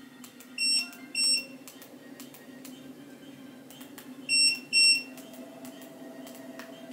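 Elseluck walking pad treadmill running with a steady hum while its console gives two short beeps, then two more a few seconds later, as its remote buttons are pressed to change the speed. After the second pair of beeps a higher steady whine joins the motor's hum.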